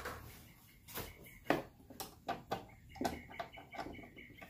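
Scattered sharp clicks and knocks of a hand tool and plastic and metal parts being worked in a car's engine bay, about half a dozen separate taps.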